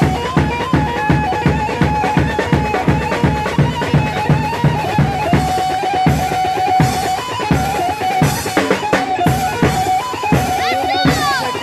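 Grani folk dance music in makam Saba: a bağlama (long-necked saz) plays the melody over a steady, driving drum beat of about three strikes a second.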